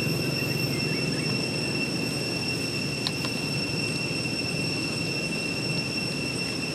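A steady high-pitched insect drone, holding one pitch with overtones and never breaking, over a low outdoor rumble. There is a faint click about three seconds in.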